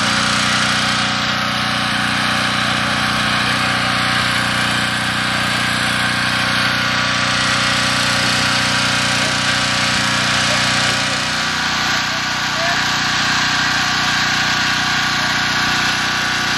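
Portable generator's small engine running steadily, giving a constant hum.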